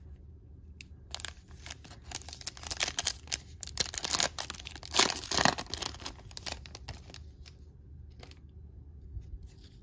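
A Panini Chronicles WWE trading-card pack being torn open by hand: crinkling and tearing of the wrapper from about a second in, loudest around the middle, dying down to light rustles near the end.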